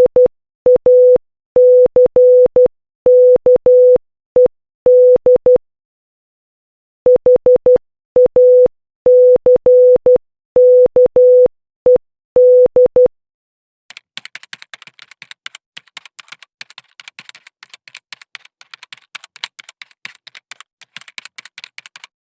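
Morse code sent as a steady beep tone near 500 Hz, keyed in short dots and long dashes, in two runs with a pause of about a second between them; the beeping stops about 13 seconds in. A second later comes a long run of rapid, irregular clicking like typing, which lasts about eight seconds.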